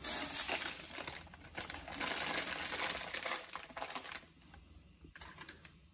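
Dry cat food kibble spilling out of a bowl and scattering across a wooden floor: a dense clatter of many small pellets for about four seconds, then only a few stray clicks.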